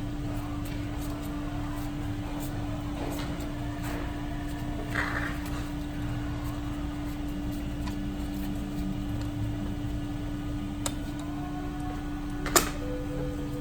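Steady hum of workshop equipment with scattered light clicks and taps as a dent puller is set up on pegs welded to an aluminum truck panel, a short scrape about five seconds in, and one sharp metallic knock near the end.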